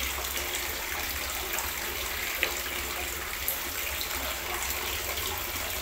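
Steady background hiss with a low hum underneath, and a few faint clicks as a plastic ice-pop mold is handled and jelly sticks are pulled out of it.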